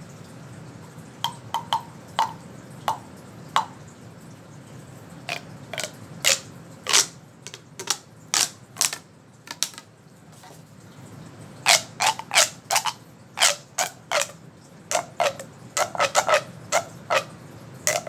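Fidget toy being popped and clicked by hand: a string of sharp, separate pops in irregular clusters, sparse at first and coming fast in the last several seconds.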